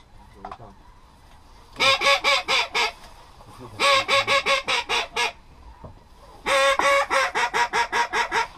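Duck call blown in three runs of loud, quick quacks, about six a second, with short pauses between; the last run is the longest.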